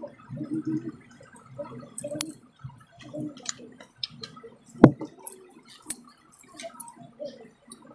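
Gulping and swallowing of mango drink from small plastic bottles, with the thin plastic bottles crackling and clicking as they are squeezed and handled. One sharp knock comes just before five seconds in, the loudest sound.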